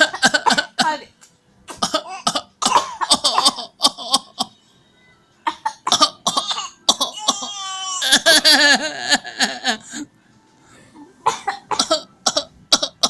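A young child imitating a grown-up's coughing: clusters of short, forced put-on coughs with pauses between, and a longer drawn-out vocal sound near the middle.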